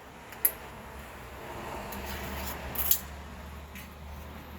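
Two sharp clicks about two and a half seconds apart, with soft scraping and rustling between them and a low rumble underneath.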